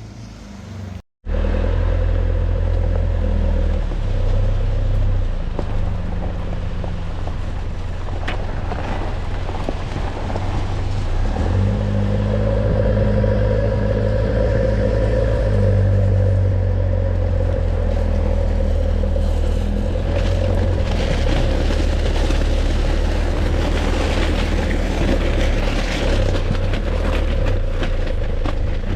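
A vehicle being driven: a steady low engine and road drone whose pitch shifts now and then.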